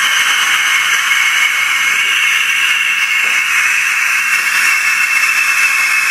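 A loud, steady hiss like rushing air or steam, sinking slightly in pitch.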